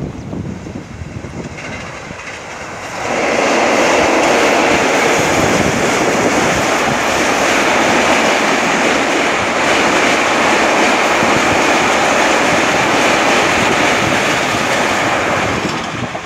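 Passenger train hauled by a WAP-4 electric locomotive rolling across a steel girder bridge. A loud, steady rumble and wheel clatter sets in suddenly about three seconds in, as the train reaches the bridge, and runs on while the coaches pass.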